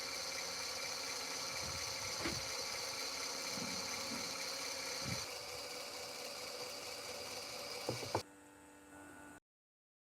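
Small electric suction pump running steadily with a high whine, pulling ink through an inkjet printhead to draw out the air. A few soft knocks come partway through, two sharp clicks just after eight seconds, then the running sound drops abruptly to a faint hum and cuts off.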